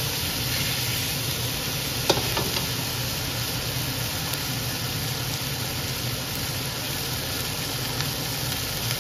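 Pork and vegetables sizzling steadily in oil in a steel wok during a stir-fry, over a steady low rumble. A single sharp metal clink of the spatula against the wok about two seconds in.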